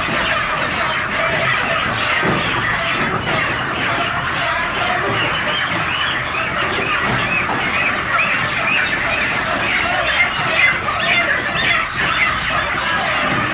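A large flock of chickens clucking and squawking, many birds calling at once in a steady, continuous din.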